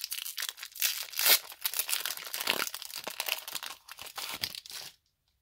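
Foil wrapper of a Pokémon trading-card booster pack crinkling and being torn open, a dense crackle that stops shortly before the end.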